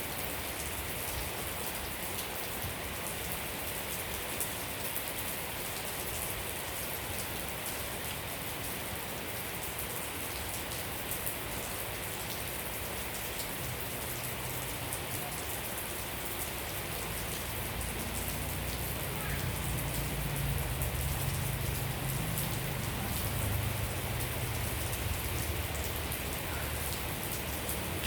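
Steady rain falling, a dense patter of individual drops. A low rumble builds in the second half and fades near the end.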